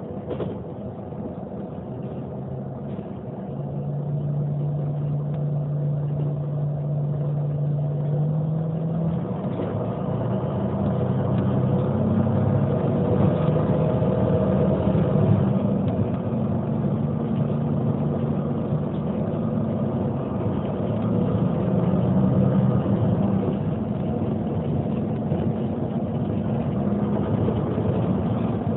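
Neoplan N 4416 city bus's diesel engine running. It gets louder a few seconds in, and its pitch shifts and varies as the bus is driven.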